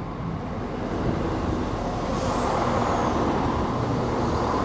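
Class 175 diesel multiple unit running past, its engine and wheel noise growing steadily louder.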